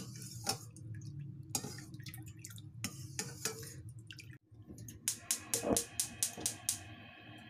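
A ceramic spoon stirring soy sauce in a stainless steel bowl, with scattered light clinks and drips. About five seconds in comes a quick run of sharp clicks, roughly four a second.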